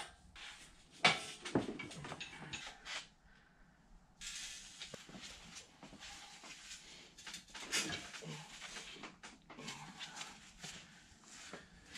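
Intermittent knocks and scraping from the heavy cast-iron Bridgeport mill ram being shifted by hand and worked onto the turret's dovetails, with the loudest knock a little under eight seconds in.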